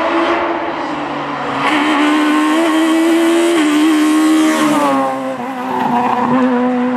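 Rally car engine at high revs on a stage, the pitch climbing after about two seconds and holding, then falling away about five seconds in.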